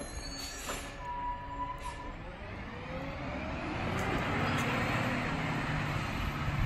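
Distant garbage truck (a Peterbilt 520 with McNeilus Zero Radius side-loader body) pulling away, its engine rising in pitch and getting louder as it accelerates. A brief high squeal sounds about a second in.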